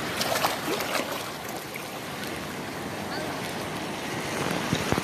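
Shallow seawater sloshing and splashing in a steady wash, with a few short splashes and people's voices in the background.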